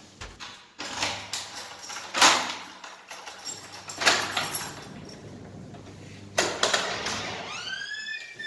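A key being worked in a wooden front door's lock: a series of sharp metallic clicks and knocks as the lock is turned and the door unlatched. Near the end a cat meows, one long call rising and then falling.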